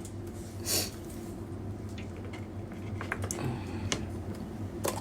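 Scattered light clicks and taps over a low steady hum, with a short soft breathy noise about a second in.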